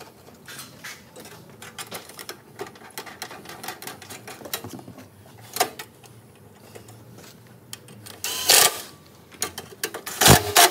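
Light metallic clicks and rattles as the sheet-metal side cover of a Toyota Camry hybrid battery pack is worked onto its studs by hand, with two louder knocks near the end.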